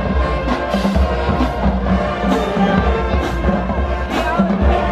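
Marching band music: brass playing over a steady bass drum beat.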